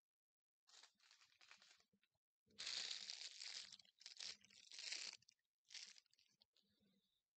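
Paper towel rustling and crinkling as it is handled by hand, in several short bursts, the loudest stretch in the middle.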